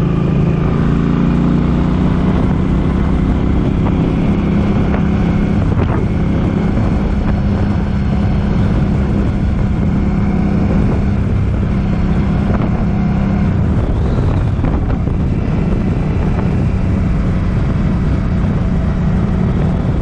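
Suzuki Boulevard M50's V-twin engine running steadily on the move, with strong wind buffeting the microphone.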